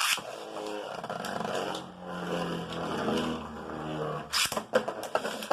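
Two Beyblade spinning tops launched into a plastic stadium with a sharp ripcord rip, then whirring and scraping as they spin with a low hum, and a sharp clash of the tops about four and a half seconds in.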